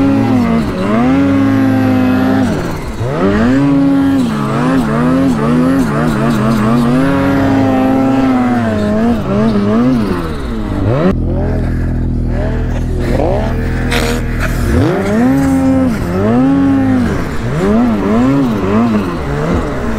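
Ski-Doo mountain snowmobile engine revving up and down again and again as the throttle is worked in deep powder. About eleven seconds in it settles to a steady low idle for a few seconds, then revs up again.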